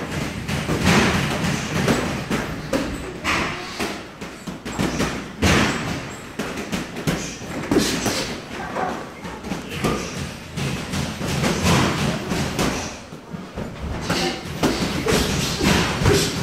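Boxing gloves thudding as punches land during sparring, at irregular intervals, with feet scuffing on the ring canvas in between.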